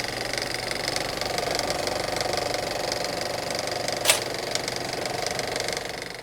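Engine of an early-1970s John Deere backhoe running with a fast, even clatter, with one sharp knock about four seconds in. The sound stops abruptly near the end.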